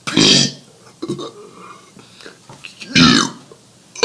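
A man burping letters of the alphabet, the burps coming from carbonated sparkling water. There are two long, loud burps, one at the start and one about three seconds in, with a short, fainter one about a second in.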